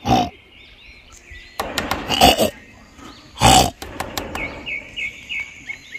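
Southern pig-tailed macaque giving three short grunts, the second one longer.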